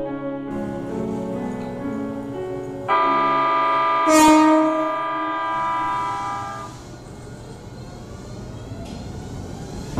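Music, then a Keikyu 1500 series train's horn sounds suddenly about three seconds in and holds for nearly four seconds, with a sharp blast about a second after it starts. The train then pulls out with a steady running noise.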